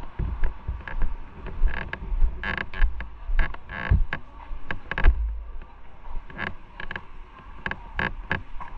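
Irregular creaks, clicks and low thumps of handling noise from a body-worn camera as the wearer moves about.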